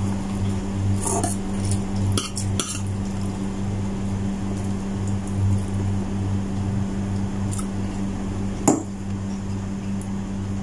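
A few light clinks and taps on a ceramic plate as food is picked off it by hand, the sharpest about nine seconds in, over a steady low hum.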